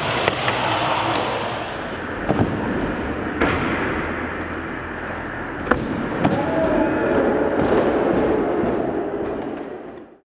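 Skateboard wheels rolling on indoor skatepark ramps, with several sharp board clacks and landing impacts spaced a second or more apart. The sound fades out near the end.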